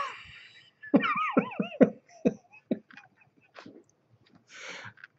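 A man laughing: a run of short voiced bursts with wavering pitch, tailing off into clicks and a breathy exhale.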